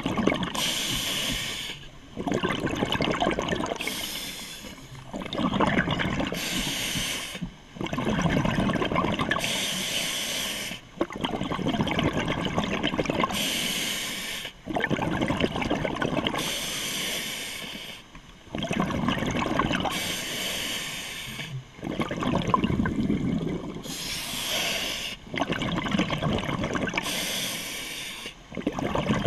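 A scuba diver breathing through a regulator: a short hiss on each inhale, then a longer rush of bubbling exhaust on each exhale, about one breath every three to four seconds.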